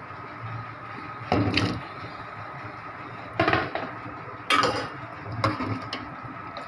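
Metal ladle stirring a thin potato-and-aubergine curry in a metal cooking pot: four or five short scrapes and knocks of the ladle against the pot, with wet sloshing of the gravy, over a steady faint hum.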